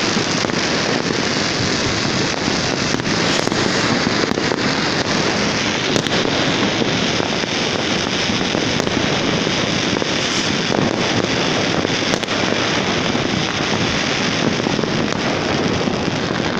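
New Year's Eve fireworks going off all over a city at once: a continuous dense wash of many distant bangs and crackles, with sharper single reports standing out now and then.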